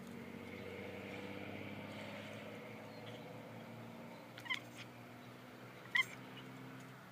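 Domestic cat chirping at birds: two short, high chirps about a second and a half apart, over a low steady hum.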